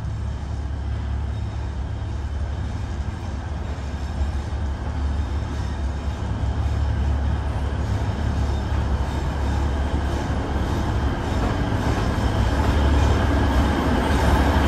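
Alishan Forest Railway diesel locomotive hauling a freight train into the station, its engine drone and running noise growing steadily louder as it approaches.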